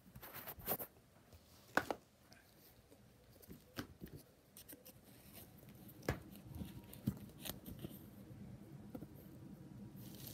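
Handling noise close to the microphone: scattered taps, knocks and rubbing as the phone is moved around and set down among things on a table, with one sharper knock about two seconds in.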